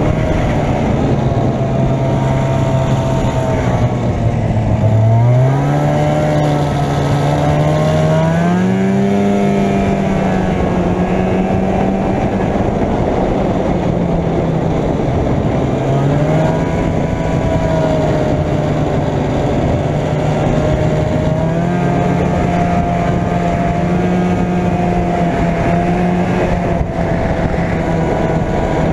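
Arctic Cat Jag 440 snowmobile's two-stroke engine running under way. Its pitch drops about four seconds in as the throttle eases, climbs back over the next few seconds, then holds fairly steady with small dips.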